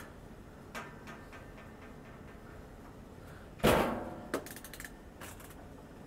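Lid of a top-loading washing machine shut with a single loud thump a little past halfway, followed by a run of quick ratcheting clicks from the cycle selector dial being turned.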